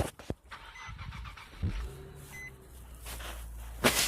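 Infiniti G37S's 3.7-litre V6 being started: it catches with a brief surge a bit over a second and a half in, then settles into a steady idle. The car's warning chime beeps twice, and there are sharp clicks at the start and a loud one near the end.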